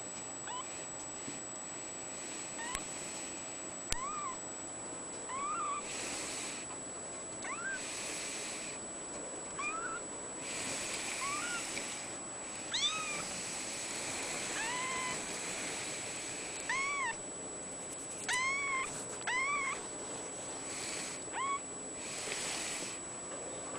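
Ragdoll kitten mewing over and over: short, high mews that rise and fall, one every second or two, some in quick pairs.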